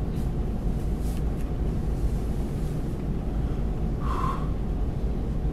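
Steady low rumble of room noise, with faint fabric rustles as a T-shirt is pulled off over the head early on, then one short puffed breath out about four seconds in.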